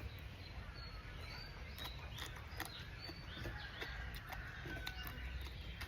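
Faint, short bird chirps over steady low background rumble, with a few scattered sharp clicks.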